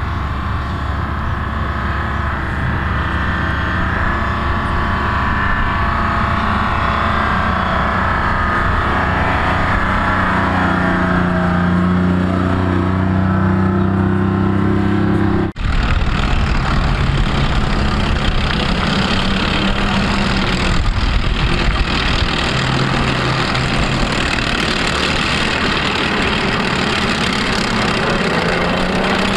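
Military vehicle engines running as vehicles move, with an abrupt cut about halfway through to another running vehicle.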